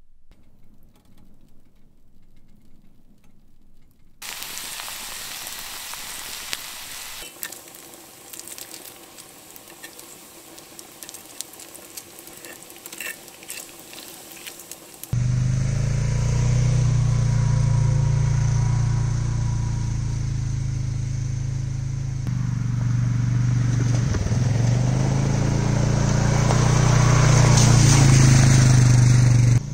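Food sizzling in a frying pan on a small wood stove, with scattered clicks, after a few seconds of faint quiet. About halfway through this gives way to an ATV engine running steadily, growing louder near the end.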